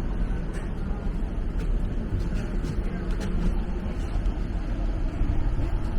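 Steady low rumble inside a moving TTC streetcar, with a few faint ticks and rattles over it.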